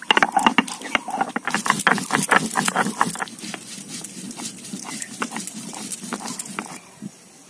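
Stone roller (nora) worked back and forth on a flat stone grinding slab (shil), grinding ginger and whole spices into a paste: rapid stone-on-stone scraping and knocking, busiest in the first three seconds, then sparser, stopping about seven seconds in.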